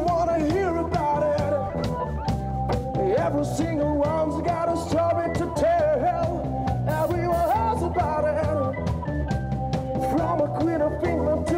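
A band playing a song: a singer's voice over drums and bass guitar.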